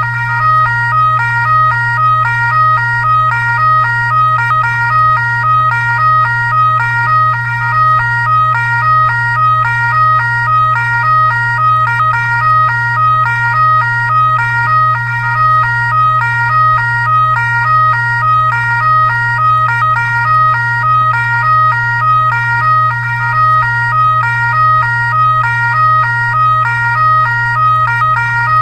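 Fire truck siren sounding steadily, its tone alternating quickly back and forth between two pitches over a constant low hum, repeating evenly without change.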